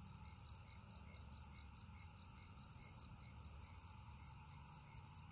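Faint night insects, crickets or katydids, chirping in a steady, even pulse of about five chirps a second.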